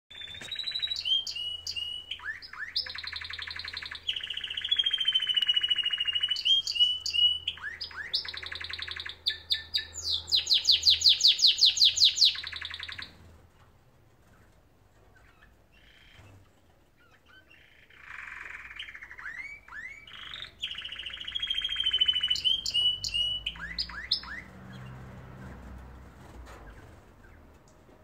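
Domestic canaries singing in long, fast bouts of trills and rolls. The song breaks off about thirteen seconds in and starts again some five seconds later, and the loudest stretch is a rapid trill of evenly repeated notes just before the break.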